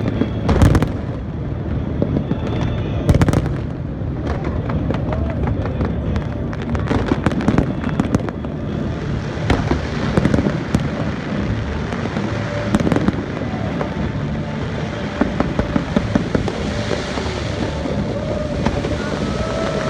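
Aerial fireworks display going off: a run of sharp bangs and crackling bursts, the loudest about half a second and three seconds in, over a steady crowd hubbub.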